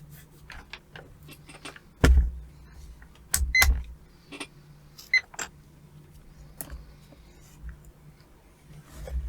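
Handling noises at a workbench: scattered clicks and taps, with a heavy knock about two seconds in and a cluster of louder knocks around three and a half seconds. A faint steady hum runs underneath.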